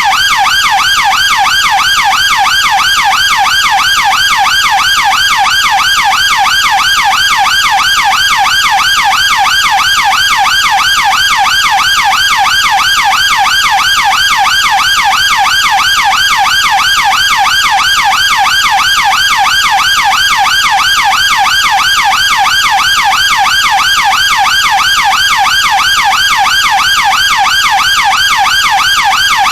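British police car siren in yelp mode: a rapid, steady up-and-down sweep repeating evenly without a break.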